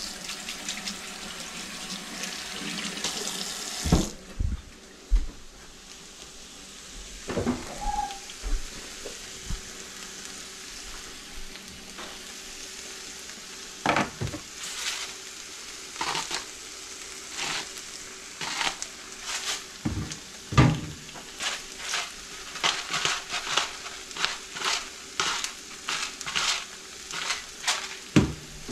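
Kitchen faucet running over hands for about four seconds, then shut off abruptly. After that, eggs and diced potatoes sizzle steadily in a frying pan. Over the second half comes a long run of quick sharp clicks, two or three a second near the end, from a hand spice grinder being twisted over the pan.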